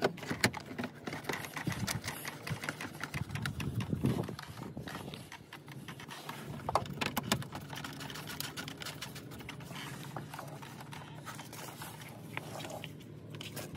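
Irregular light clicks and knocks as the oil filter access cover is fitted back onto the underside of the car's engine undercover by hand, busiest in the first few seconds and sparser afterwards.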